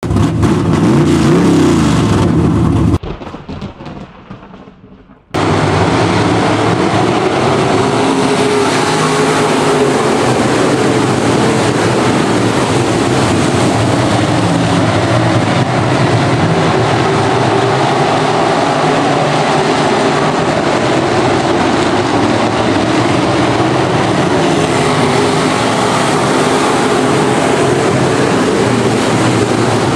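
A brief opening sound with a rising pitch dies away in the first few seconds. About five seconds in, a pack of IMCA Modified dirt-track race cars' V8 engines comes in, running together at racing speed, a steady dense engine sound.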